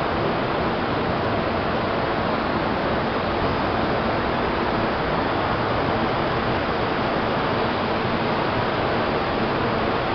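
Steady, even rushing din of a large exhibition hall, with no single sound standing out and no change in level.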